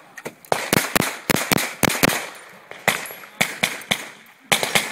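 Semi-automatic pistol firing a rapid string of shots, mostly in quick pairs, with short pauses between the pairs.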